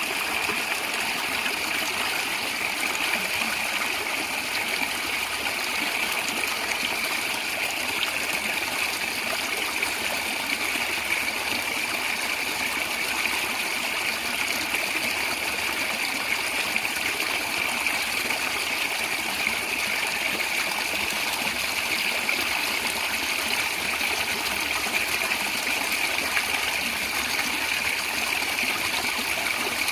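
A small stream gurgling and trickling over stones, a steady, even rush of water.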